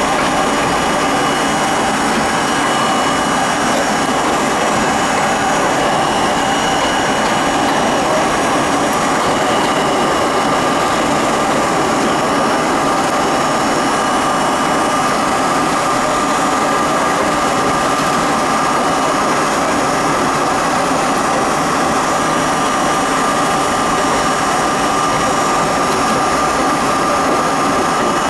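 Budd-built R32 subway train running steadily at speed, heard from inside the car: a continuous rumble of wheels on rail with a steady high whine from the motors and gearing.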